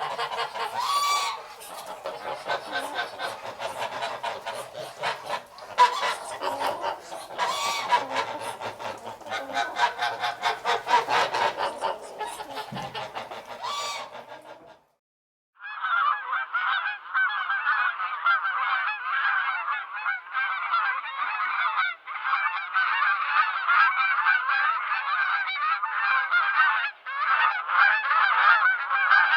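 Geese honking in a dense, continuous chorus, in two separate recordings: the first breaks off about halfway through, and after a moment's silence a second, steadier flock of honking geese begins.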